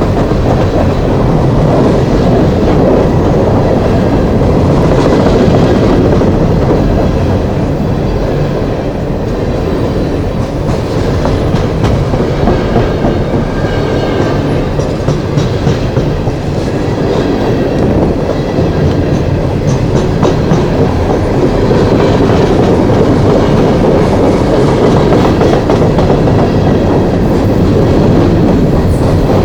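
Coal train's cars rolling past close by: a loud, steady rumble of steel wheels running on the rails.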